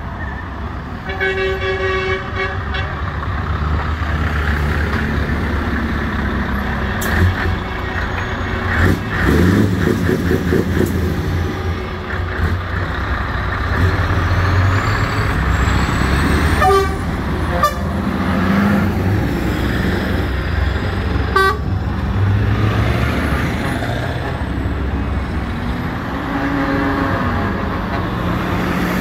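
Lorries in a slow convoy, their diesel engines running with a steady low rumble, and an air horn sounding once for about two seconds near the start, with a few shorter toots and knocks later on.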